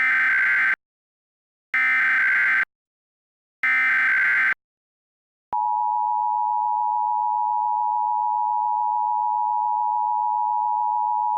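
Emergency Alert System test tones: three short bursts of SAME header data, a buzzy digital screech about two seconds apart, then after a brief gap the steady two-tone EAS attention signal (853 and 960 Hz) starts about five and a half seconds in and holds.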